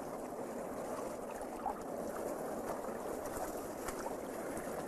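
Steady rushing water noise, an underwater ambience with a few faint ticks and bubbles.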